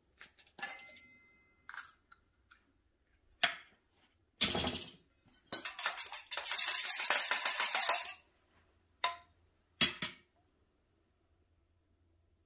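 Eggs cracked and dropped into a stainless steel bowl: a few light clicks and knocks, one heavier knock, then about two and a half seconds of rapid clinking as the eggs are beaten in the metal bowl, followed by two sharp taps on the bowl.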